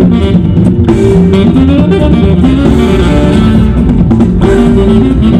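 Loud music with guitar and drums, with steady held notes over a regular drum beat.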